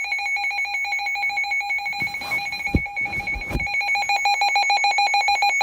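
Weather alert radio's alarm beeping rapidly and evenly, two pitches together, sounding for an incoming weather alert. Two dull thumps come near the middle.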